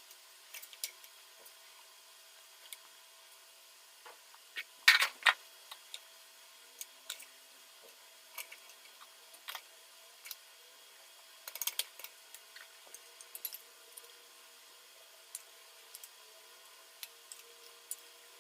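Scattered light clicks and knocks of hands working, with a louder cluster about five seconds in and another near twelve seconds, over a faint steady hum.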